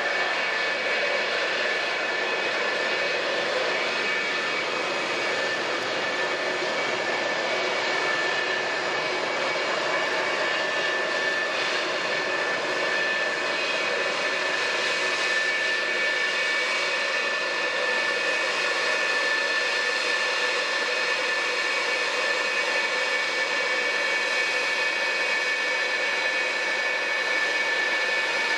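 McDonnell Douglas F-4EJ Phantom II jet fighters taxiing, their J79 turbojet engines running at low taxi power with a steady roar and a continuous high-pitched whine.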